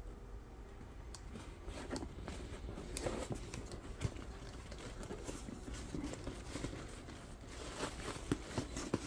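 Cardboard shipping box being handled and turned over in the hands: fingers rubbing and tapping against the cardboard and packing tape, with scattered light knocks and a few sharper ones near the end.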